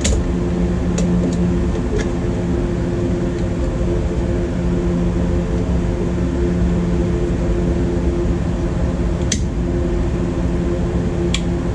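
Steady mechanical hum, with a few sharp clicks as the clamps of a battery load tester are handled and clipped onto a boat battery's terminals; the loudest click comes about nine seconds in.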